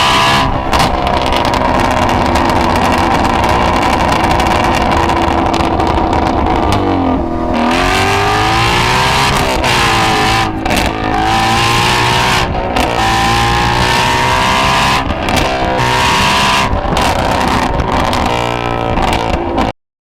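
Ford Shelby GT350's 5.2-litre flat-plane-crank V8 running hard at high revs, its pitch dropping and climbing again several times as the throttle is lifted and reapplied. The sound cuts off abruptly near the end.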